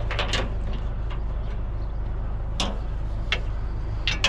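A few sharp knocks and clanks of scrap being shifted around in a truck's load, one or two near the start, a couple in the middle and several close together near the end, over a steady low hum.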